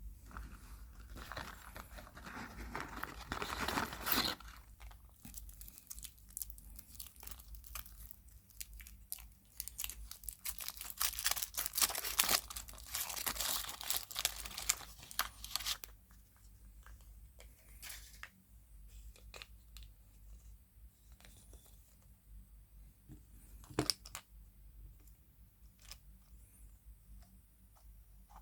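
Wrapper of a surprise egg being torn and crinkled off in two long crackling bouts, then quieter handling with scattered small clicks.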